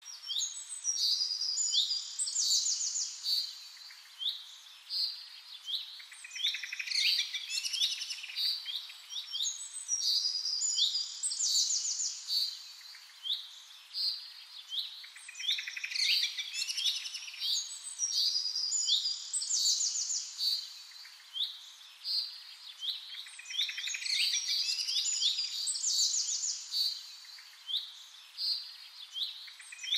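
Birds chirping and singing, many quick high calls and trills overlapping, in a pattern that repeats about every eight seconds like a looped birdsong backing track.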